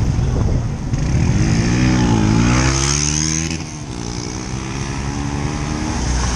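Motorcycle engines running as riders pull away on a wet road, over a steady low rumble. About two seconds in, one engine's pitch dips and then climbs for a second or so before breaking off abruptly.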